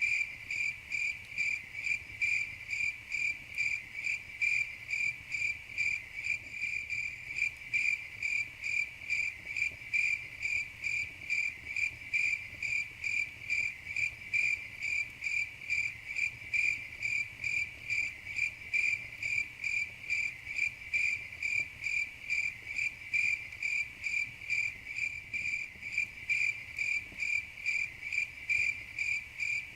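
Crickets chirping in an even, unbroken rhythm of about two to three high-pitched chirps a second.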